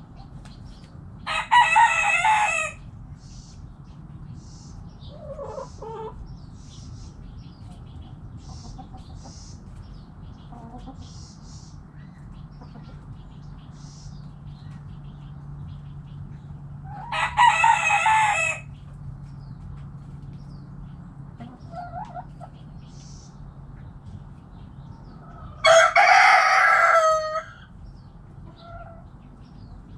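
A rooster crows three times, each crow about a second and a half long: once near the start, once just past the middle and once near the end. Between the crows, hens cluck softly and small birds chirp faintly.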